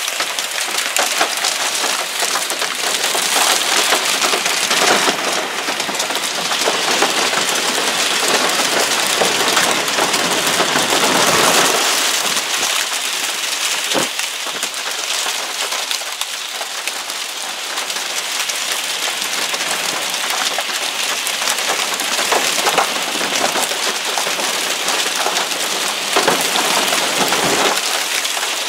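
Heavy rain mixed with small hail, BB- to pea-sized stones, pelting down. It makes a dense, steady hiss full of small clicking hits, with a few sharper knocks here and there.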